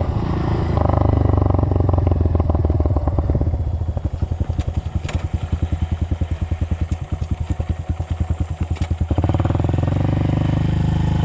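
Dirt bike engine running steadily, then about four seconds in dropping off throttle to a slow, evenly pulsing chug for about five seconds, before picking back up to a steady run near the end.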